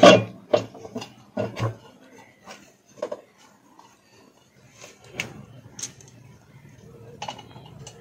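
Steel rotor of an LG direct-drive washing machine motor being fitted onto its shaft over the stator: a quick run of metal clanks and knocks in the first two seconds, the loudest right at the start, then a few scattered ticks.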